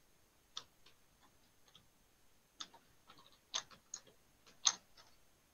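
Computer keyboard keys being pressed one at a time while code is edited: a handful of faint, unevenly spaced clicks.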